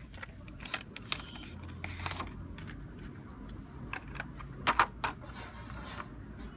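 Small precision screwdriver kit parts being handled: irregular light clicks and rattles, with a louder double click about five seconds in.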